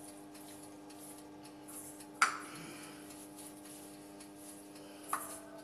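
Hands rubbing and patting a dry spice rub into a raw pork knuckle on a wooden cutting board: a faint rubbing, broken by two sharp knocks with a brief ring, the louder about two seconds in and a smaller one near the end. A steady low hum runs underneath.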